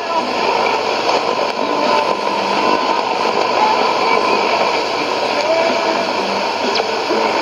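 Sony ICF-2001D shortwave receiver playing a weak AM signal on 6160 kHz: steady static and noise at an even level, with faint broadcast audio buried under it.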